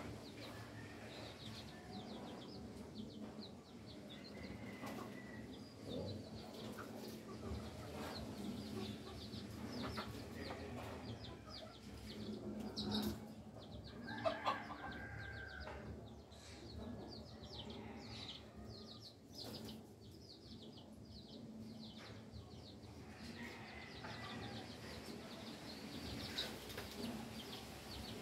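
Birds calling: a steady stream of quick, high chirps, with a louder call about fourteen seconds in.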